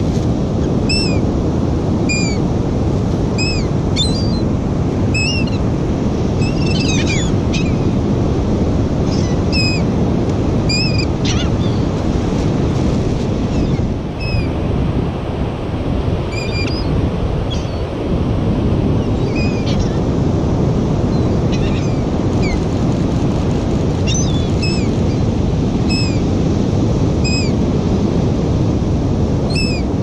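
Seagulls calling again and again, short high calls about once a second, over a steady loud rush of surf and wind on the microphone.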